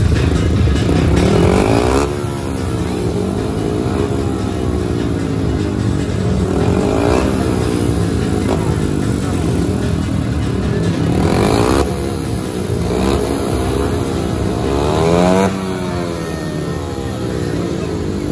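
Several 500 cc single-cylinder speedway motorcycles revving at the start gate, their pitch climbing and dropping over and over as the riders blip the throttles. The revving cuts back sharply about two seconds in, and again near twelve and fifteen seconds.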